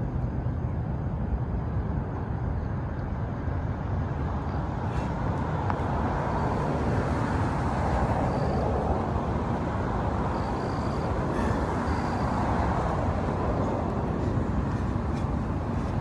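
Road traffic: a vehicle passes, its noise swelling about six seconds in and fading by about thirteen seconds, over a steady low rumble.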